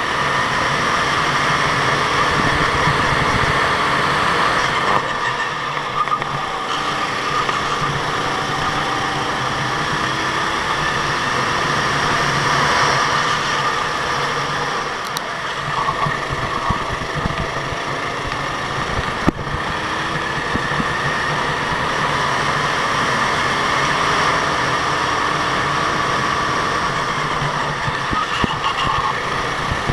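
Go-kart engines running steadily on track, their pitch rising and falling as they rev, with a single sharp click about two-thirds of the way through.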